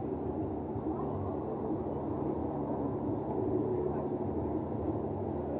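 Boat engine running steadily: an even, low drone.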